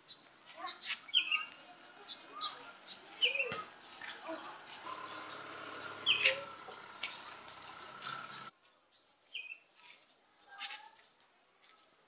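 A young fancy pigeon's wings flapping as it flutters along the ground, mixed with repeated short, high bird chirps. Most of the sound stops abruptly about two-thirds of the way through, leaving fainter chirps.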